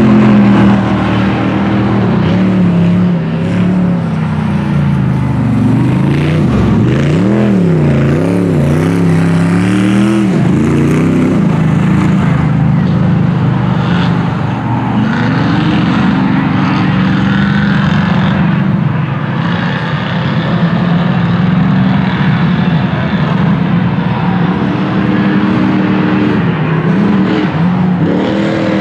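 Off-road race vehicle engines running at speed, the revs rising and falling several times a few seconds in, then holding a steady loud drone.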